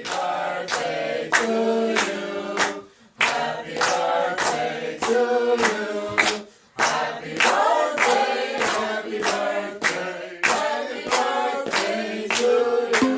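Background music: layered choir-like singing over regular percussive hits, about three a second.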